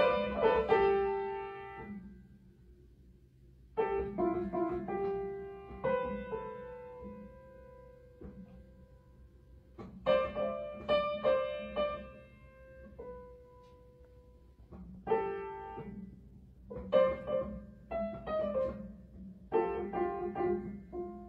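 Upright piano keys pressed by a cat's paws: a few notes at a time in irregular bursts a few seconds apart, each group left to ring and fade, with one note held for several seconds about six seconds in.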